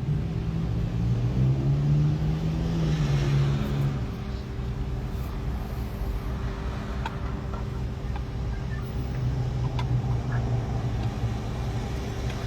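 Car engine idling, heard from inside the car, its note swelling and shifting over the first few seconds before settling into a steady low drone.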